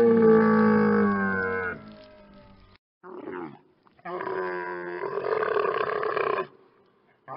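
Camel calls: a loud, pitched bellowing call lasting about two seconds, then a short falling call, then a longer, rougher, growling call from about four seconds in that cuts off abruptly.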